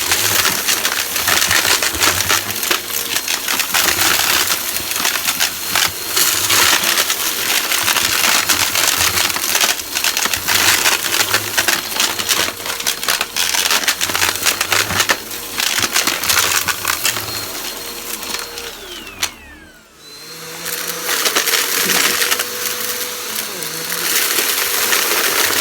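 Vacuum cleaner running, its motor giving a steady whine, while crunchy debris crackles and rattles as it is sucked up. About three quarters of the way through, the motor winds down with a falling whine, then builds back up and carries on.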